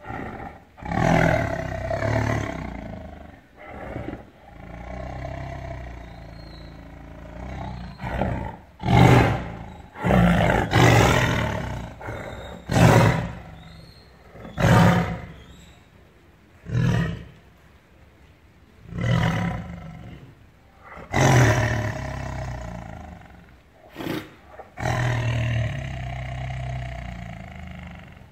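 A caged tiger roaring in anger, a string of loud, short roars about two seconds apart, with a few longer drawn-out roars near the start and toward the end.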